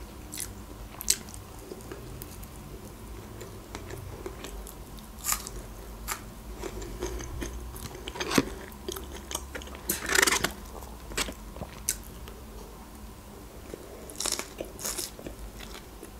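Close-up mouth sounds of a person eating a Big Mac: biting and chewing, with scattered wet clicks and smacks and a few louder crunches, the busiest about ten seconds in.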